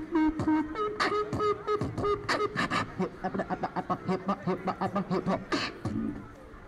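Beatboxing into a handheld microphone, played through a portable amplifier: a fast beat of vocal kick and snare sounds mixed with short sung notes. It stops about six seconds in.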